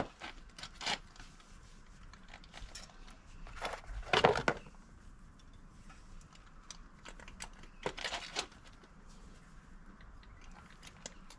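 Soil and fine roots of a Satsuki azalea root ball crackling and tearing as it is teased apart by hand and with a small tool in a plastic pot. Short scattered crackles and scrapes, with louder bursts about four and eight seconds in.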